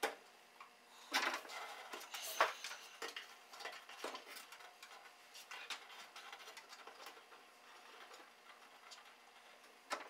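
Faint, irregular clicks, taps and scrapes of hands feeding a string into the hollow B-post of a bare steel car body shell. A few louder taps come about one, two and a half, and four seconds in.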